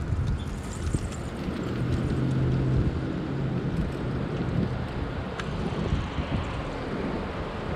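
Wind rumbling on the microphone of a camera riding on a moving bicycle, a steady low rumble, with a brief low hum about two seconds in.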